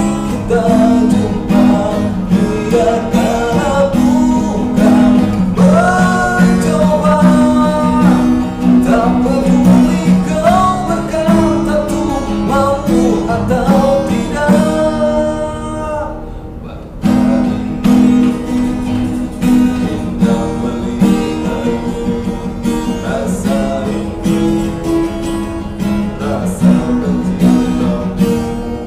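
A man singing to his own strummed acoustic guitar. A little past halfway the voice stops and, after a brief pause, the guitar strumming goes on alone.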